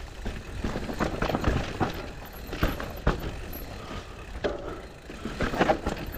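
Mountain bike ridden fast down a dirt trail: tyre noise with irregular knocks and rattles from the bike over bumps, over a steady low rumble of wind on the microphone.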